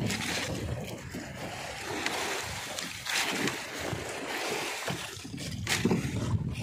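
Wind buffeting the microphone on a small wooden fishing boat, an uneven low rumble that swells and fades. A few brief knocks and scrapes come through as red snappers are lifted out of the wooden hold.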